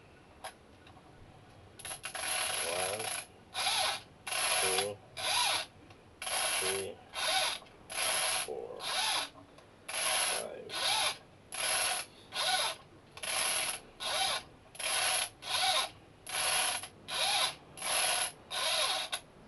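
High-capacity M4 airsoft magazine being wound by its thumb wheel, the ratchet clicking rapidly as the feed spring is tensioned. It comes in about twenty short bursts, a little more than one a second, starting about two seconds in.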